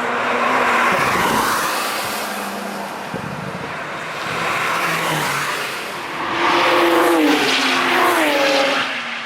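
Cars passing at speed one after another, each engine note swelling and dropping in pitch as it goes by; the loudest pass-by comes in the second half.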